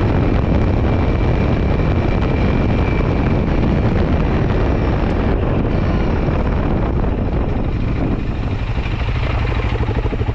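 Dirt bike ridden on a gravel road, its engine running under wind noise on the microphone as it slows from speed. About eight seconds in the wind dies away as the bike rolls to a stop, and the engine's even idle beat comes through.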